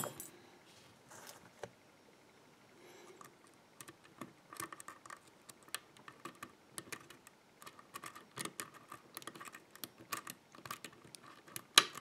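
Faint, irregular metallic clicks and ticks of a steel hook pick lifting the spring-loaded pin stacks of an EVVA five-pin euro cylinder held under tension, sparse at first and thicker from a few seconds in. One sharper click near the end as the plug rotates into a false set on a spool pin.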